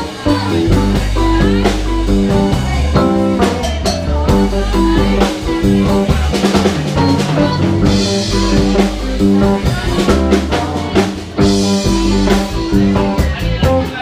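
Live rock band playing: electric guitars over a walking bass line and a drum kit, with cymbal crashes about eight and eleven seconds in.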